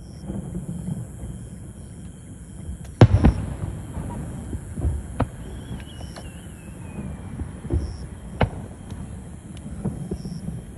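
Aerial fireworks shells bursting over a steady low rumble. One loud bang comes about three seconds in, followed by several more scattered bangs, with a faint wavering whistle in the middle.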